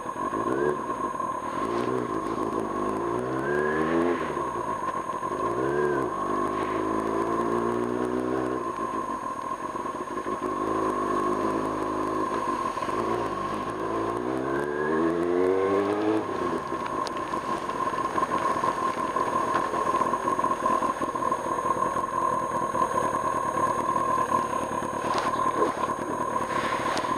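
Kawasaki Ninja ZX-6R inline-four engine under way, its note climbing and dropping back about four times as the rider opens and closes the throttle. After about 16 seconds the engine note fades into a steady drone of wind and road noise, with a steady high whine throughout.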